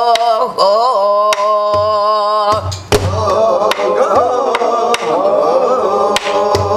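A woman singing gueum, the wordless Korean vocal melody, in long wavering held notes, accompanied by strokes of a buk barrel drum beaten with a stick. From about three seconds in, several voices sing the line together.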